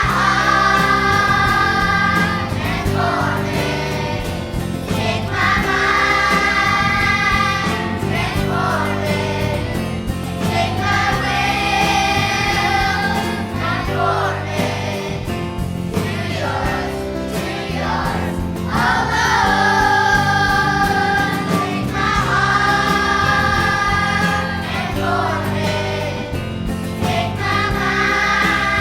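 A choir singing a Christmas medley with instrumental accompaniment, the voices held in long chords phrase after phrase.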